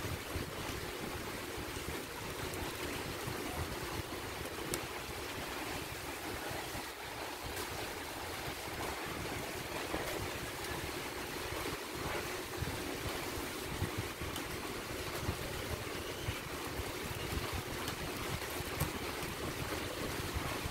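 Steady rushing background noise, like wind or a fan, with a few faint clicks scattered through.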